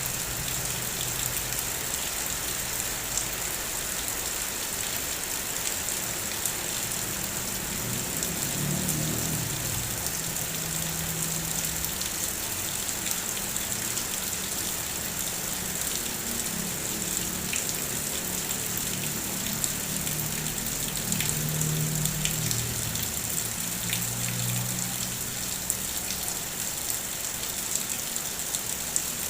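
Steady rain falling, with individual drops ticking through the hiss. A faint low hum rises under it twice, once about a third of the way in and again for a longer stretch in the second half.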